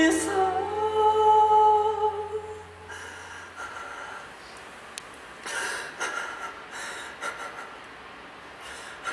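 A man's sung note held at the end of a song, over a low sustained note from the band, both fading out about three seconds in. Then a quiet stretch with a few faint rustles.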